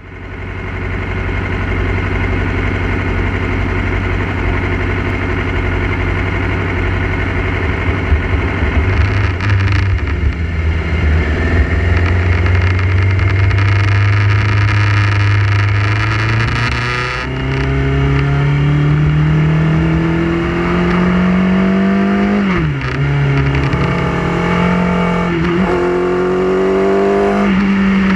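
Motorcycle engine running at a steady low note, then accelerating with its pitch climbing, dipping briefly at a gear change about two-thirds through and climbing again.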